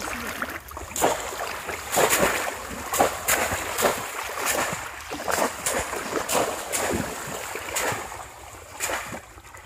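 Shallow water splashing and sloshing as bamboo cone fish traps are plunged down into it again and again, in irregular bursts more than once a second that ease off near the end.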